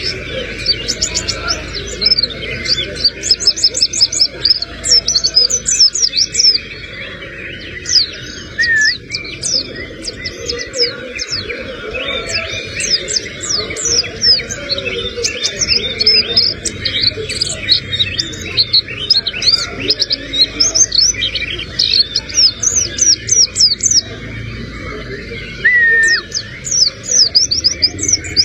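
White-eye (pleci buxtoni) singing in rapid bursts of quick, high sweeping notes, its song packed with mimicked crimson sunbird (sogon) phrases.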